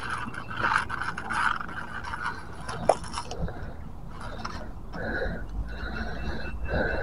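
Handling noise as a red lure's hooks are worked free from a snakehead's mouth on grass: irregular scraping and rustling of hands, fish, line and a dry twig, with one sharp click about three seconds in.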